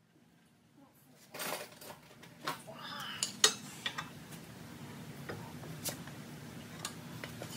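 Metal tools clinking and knocking against a car's front steering knuckle and hub, a string of sharp clinks starting about a second in, over a steady low hum.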